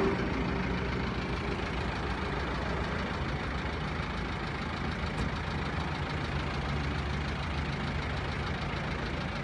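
Tow truck's engine idling steadily.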